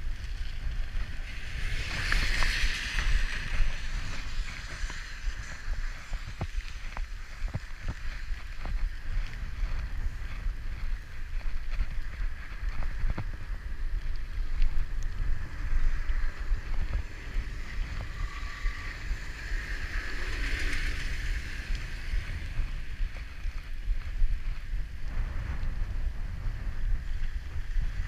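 Wind buffeting the microphone of a bicycle-mounted action camera while riding on wet asphalt: a steady low rumble under tyre hiss, with light clicks and rattles from the bike over the rough surface. Two louder swells of hiss come about two seconds in and about twenty seconds in.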